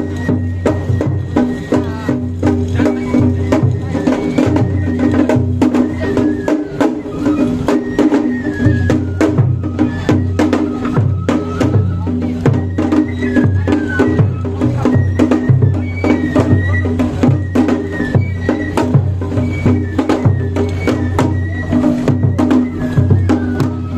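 Japanese festival music (matsuri bayashi) played on the float: a quick, even beat of drums and clacking percussion under a high wavering flute melody, with voices of the people around it.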